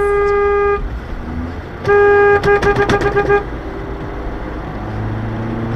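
Car horn honking: a long blast that stops just under a second in, another long blast at about two seconds, then a quick string of about six short toots, over steady road rumble.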